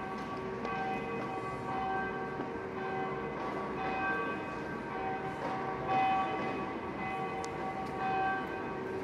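Church bells ringing, struck about once a second, each stroke ringing on into the next, over a steady low background hum.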